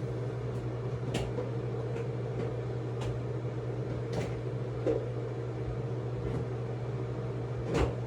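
A steady low hum from an appliance or electrical equipment, with a few light clicks and knocks of small objects being handled, the loudest near the end.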